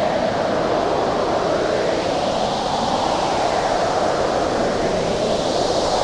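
Howling winter storm wind, a dense steady rush with a hollow moaning tone that swells up twice, about two and a half seconds in and again near the end.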